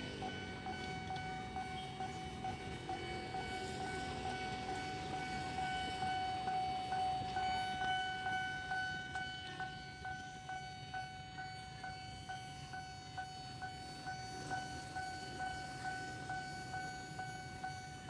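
KRL electric commuter train passing, its wheels clacking over the rail joints in a steady rhythm, over a steady high tone.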